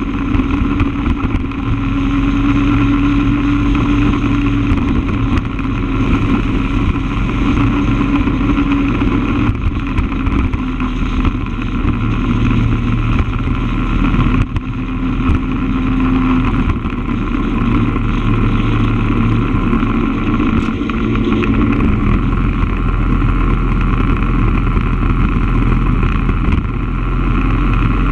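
A vehicle's engine running steadily at road speed, heard close with road and wind noise; its pitch shifts a few times as speed changes.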